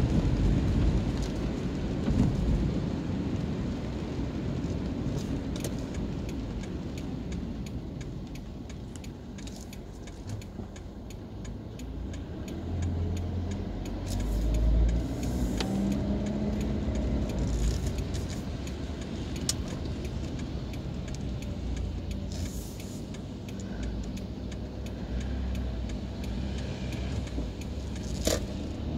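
Inside a car's cabin in rain: steady low road and engine rumble with tyres hissing on wet asphalt, and scattered light taps of raindrops on the windscreen. The rumble swells about halfway through with the engine note rising briefly, and a single sharper tap comes near the end.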